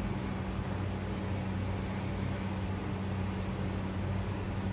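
Steady low hum over an even hiss of background noise.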